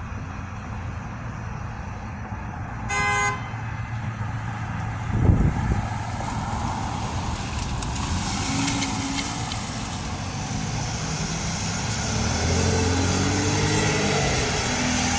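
A vehicle horn toots once, briefly, about three seconds in, followed by a low thump. A police SUV then drives past close by, its engine and tyre noise swelling, and traffic noise carries on.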